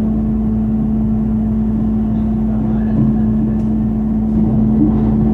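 Steady running rumble of a moving passenger train heard from inside the carriage, with a constant low hum.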